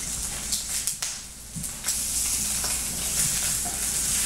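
Turkey bacon sizzling in a frying pan as it is turned with a spatula, with a few light ticks of the spatula against the pan.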